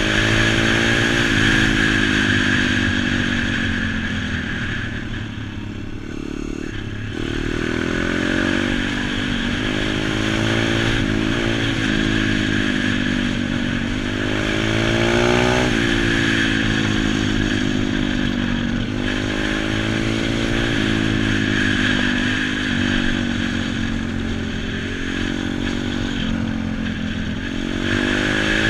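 YX pit bike's small four-stroke engine being ridden, its pitch climbing and falling again and again with the throttle, with a brief dip in loudness about five seconds in.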